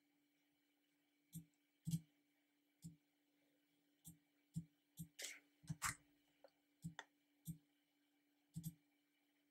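Computer mouse-button clicks, single and double, irregular at about one to two a second, busiest around the middle.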